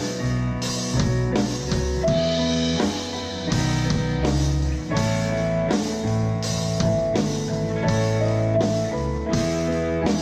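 Instrumental section of a rock song: guitars and a bass over a steady drum-kit beat, with no singing.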